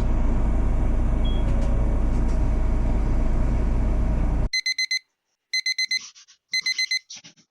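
A steady rumbling noise that cuts off suddenly about four and a half seconds in, followed by a digital alarm clock beeping: three quick bursts of several high beeps, about a second apart.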